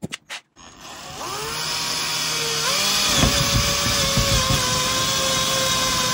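Cordless drill with a spade bit boring a hole through a plasterboard wall. A few clicks come first, then the motor spins up with a whine rising in pitch. About three seconds in it settles to a steady whine, with rough grinding and knocks as the spade bit cuts into the board.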